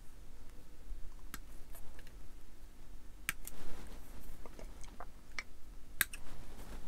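Scattered light clicks and taps from small plastic model-kit parts being handled and fitted, about half a dozen over several seconds.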